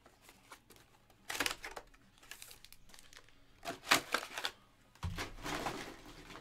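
Hands handling a cardboard trading card box and cards: several short rustles and crinkles of card and wrapper, the loudest about four seconds in.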